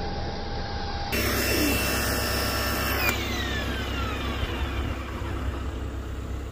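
Electric pressure washer's motor running steadily, then winding down with a falling whine from about three seconds in.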